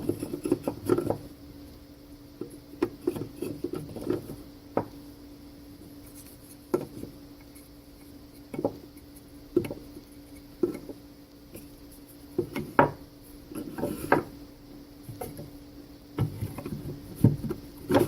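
Wooden Langstroth frame parts being handled and knocked together: scattered light knocks and clicks at irregular intervals, with a steady low hum underneath.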